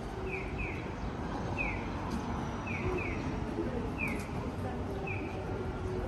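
Short falling electronic chirps, identical in shape and some in quick pairs, repeating about once a second: the bird-call audible signal of a Japanese pedestrian crossing, over steady city street noise.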